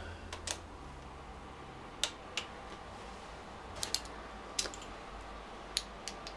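About ten sharp clicks at irregular intervals, several in close pairs: a click-type torque wrench set to 12 ft-lb breaking over on crankcase bolts that are already tightened, each click signalling a bolt at torque.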